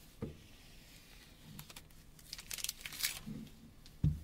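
Clear plastic protective film being peeled off a Nokia Lumia 720's unibody back cover, crinkling and crackling, loudest a little before the three-second mark. A short dull thump near the end as the phone is set down on the table.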